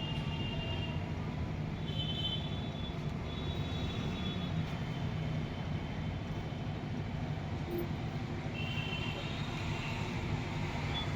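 Steady low rumble of street traffic, with a few short high-pitched tones sounding over it.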